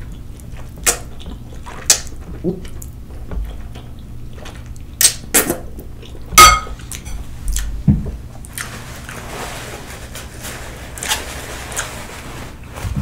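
Close-up wet slurping and chewing of a mouthful of very spicy instant noodles, with sharp clicks of a metal fork against a glass bowl. From about two-thirds of the way through comes a long breathy hiss of air blown out through pursed lips against the chilli heat.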